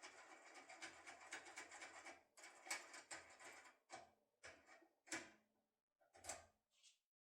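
Faint small clicks and scraping of metal lock-pick tools and a lock cylinder being handled: a quick run of light scratchy clicks, then single clicks every second or so.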